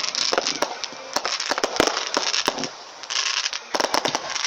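Fireworks going off: dense crackling pops over a steady hiss, easing off briefly a little past the middle before more sharp cracks.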